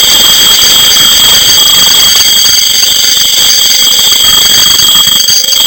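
Refrigerator fan motor giving a loud, steady high-pitched whine, the noise of a faulty fan motor.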